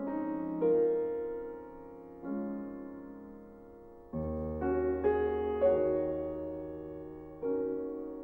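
Background piano music: slow chords struck every second or two, each one dying away before the next.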